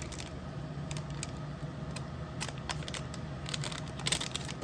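Light clicks and crinkles of a baseball card pack wrapper being handled and worked open, scattered at first and busier near the end, over a steady low hum.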